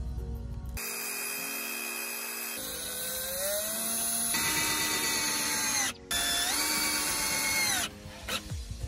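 A Black+Decker cordless drill running into a plywood panel. The motor whines up in pitch as it spins up and runs for about three seconds, then stops briefly. Near the six-second mark it starts again, rising in pitch, and runs for almost two seconds more.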